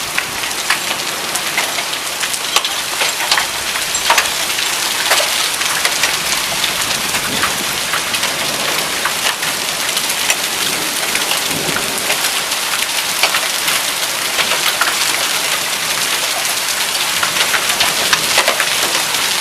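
Hail and heavy rain coming down together: a steady hiss of rain with many sharp ticks of hailstones striking surfaces.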